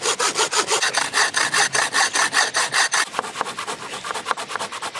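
Hand saw cutting through a log in quick, even back-and-forth strokes, about five a second; after about three seconds the strokes come faster and lighter.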